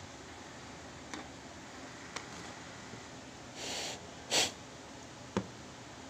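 Quiet handling of small vape atomizer parts: a few light clicks, two short hissing noises a little past the middle (the second louder and sharper), and a sharp click near the end.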